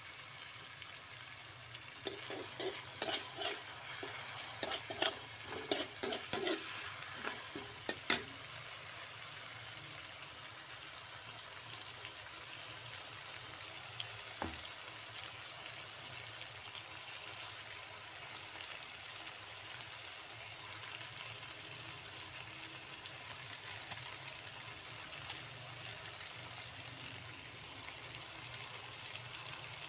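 Sliced onion and aromatics frying in hot oil in a wok, a steady sizzle. For the first several seconds a slotted metal spatula clicks and scrapes against the wok as the food is stirred, then the sizzle goes on alone, with one more click about halfway.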